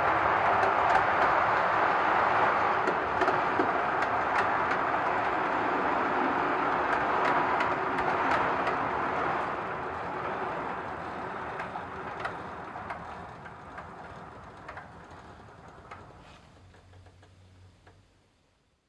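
Gauge 1 model train rolling along the track: a steady rolling rumble with scattered clicks of the wheels over rail joints, fading away over the second half.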